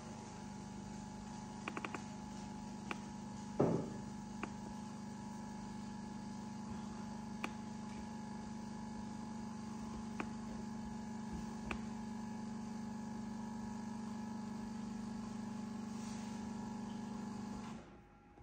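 A steady electrical or motor hum with a low tone switches on and cuts off suddenly about 18 seconds in. A few light clicks and one louder knock about three and a half seconds in.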